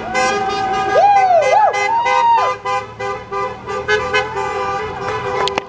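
Several vehicle horns honking at once, their steady tones overlapping, with some tones sliding up and down in pitch.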